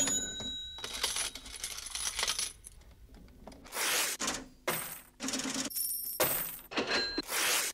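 Coins clinking and jingling as they are dropped, in a string of short metallic rattles, some with a bright ring. The rattles come closer together and grow louder in the second half.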